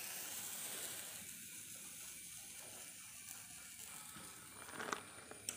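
Faint steady hiss of slime heating in a small steel pot over a low gas-stove flame, with a couple of light clicks near the end.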